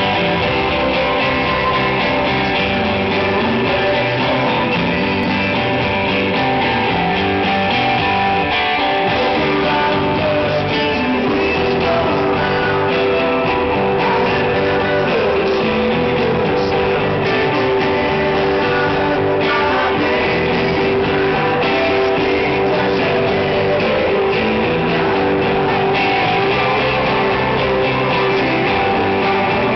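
Rock band playing live, with strummed electric guitar to the fore.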